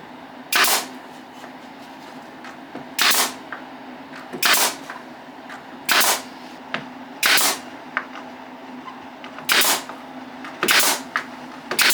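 Pin nailer firing pins into a glued wooden joint, about eight sharp shots spaced irregularly one to two and a half seconds apart, over a steady low hum.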